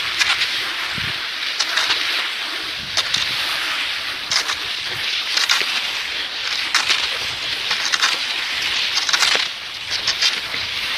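Cross-country skis gliding on groomed snow, a steady hiss with a crunch about every second and a quarter from the skier's strides and pole plants.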